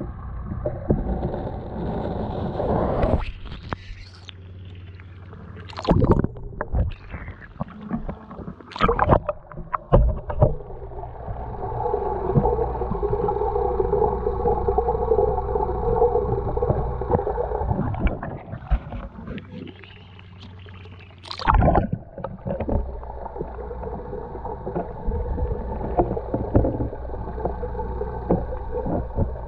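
Muffled underwater noise heard through a GoPro's waterproof housing: a steady low rumble with several sharp knocks and thuds against the housing.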